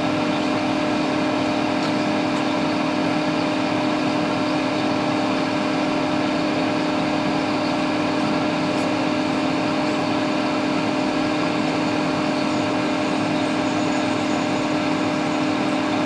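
Steady airy whirr with a constant hum: the hot-air rework station's blower and a fume exhaust fan running while the solder under the U5450 chip is heated to melt it for removal.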